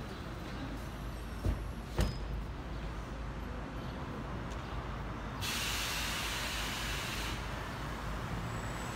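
City street traffic rumble, with two sharp knocks about a second and a half and two seconds in, and a two-second hiss of escaping air past the middle that starts and stops abruptly, typical of a bus's air brakes.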